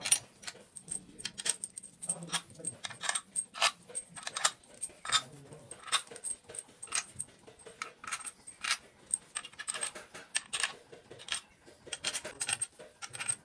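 Steel bolts clinking against metal as they are dropped by hand into the camshaft bearing caps of a Ford Transit diesel cylinder head: a string of sharp, irregular metallic clicks.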